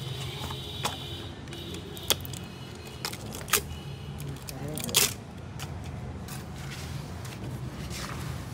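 A cardboard box being opened and a new spin-on oil filter handled, with rustling and a few sharp clicks and taps, over a steady low hum.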